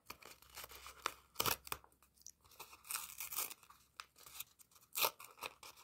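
Fingers picking at and tearing open a small paper packet that is stuck shut: irregular rustling, crinkling and little tearing sounds, loudest about a second and a half, three seconds and five seconds in.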